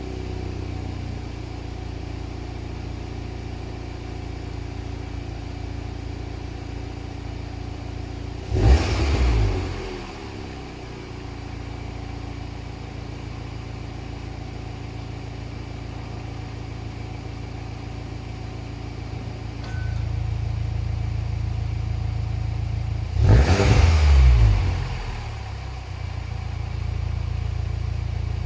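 Car exhaust idling steadily, blipped twice: a short sharp rev about nine seconds in, and a longer rev held for a second or so near the end, each falling straight back to idle. The idle gets louder about two-thirds of the way through.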